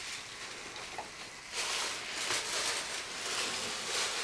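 Rustling noise that gets louder about a second and a half in and comes in several stretches, with no clear knocks or tones.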